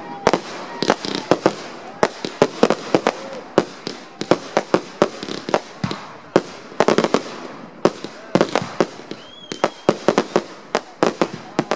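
Aerial fireworks going off in rapid succession: many sharp bangs from bursting shells, several a second, over a steady crackling noise between them.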